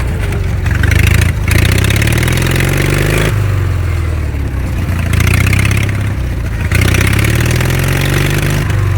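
Engine running hard, its pitch climbing over a second or two and then dropping back, several times over.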